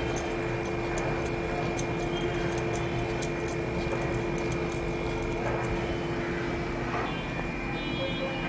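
Steady mechanical hum from a running fan or appliance, with a few fixed steady tones in it. During the first few seconds there are faint crisp ticks as jaggery-coated puffed rice is squeezed into a ball by hand.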